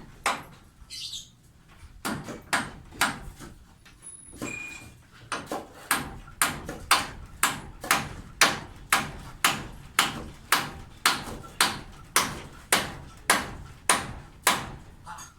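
Hammer blows on a construction site: a few scattered strikes, then a steady run of about two hard strikes a second.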